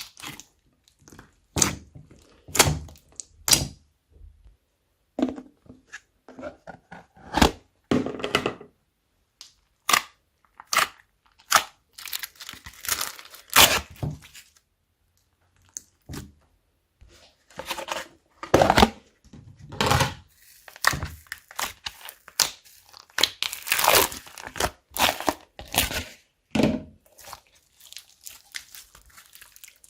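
Slime being mixed and squeezed by hand: irregular sticky clicks, pops and crackles in short bursts, with brief pauses between them.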